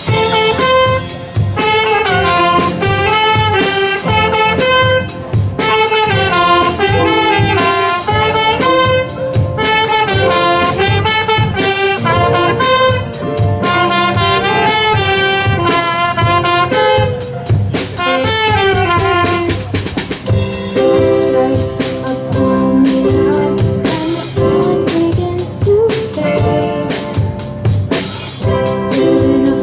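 A live band playing an instrumental: a horn-like melody over drum kit and bass. About twenty seconds in, the lead melody stops and held keyboard chords take over.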